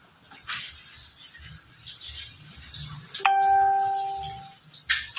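Water from a garden hose hissing and splashing on concrete, with a single clear bell-like ding about three seconds in that rings on for about a second.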